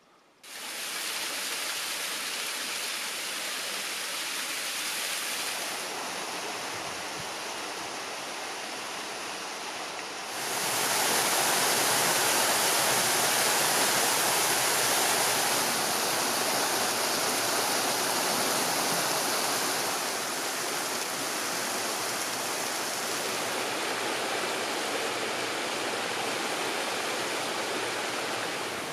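Rushing water of a mountain stream, a steady hiss with no pitch to it. It gets suddenly louder about a third of the way in and eases back a little later on.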